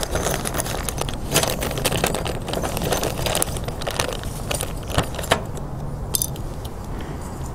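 Small metal bolts and washers clinking and rattling together inside a plastic parts bag as a hand picks through them, with a few sharper metallic clicks along the way.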